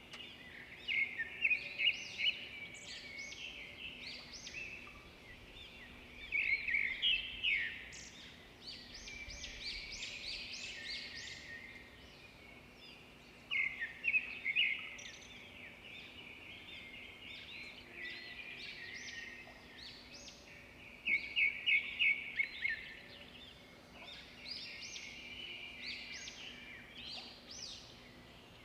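Birds chirping in repeated bouts of quick, high chirps every few seconds, over a faint steady low hum.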